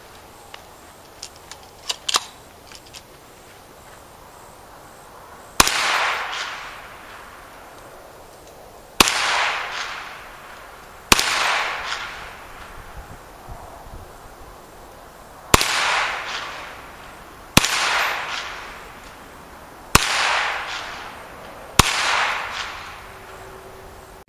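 Seven shots from a Hi-Point 995 9mm carbine, fired one at a time at an uneven pace, each followed by an echo that fades over a second or two. A few light clicks come in the first few seconds, before the first shot.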